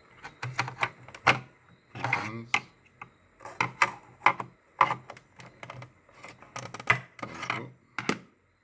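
Plastic housing of a UPS being pried apart at its snap-fit clips: a run of sharp plastic clicks and snaps with short scraping and rattling of the case as it is worked open.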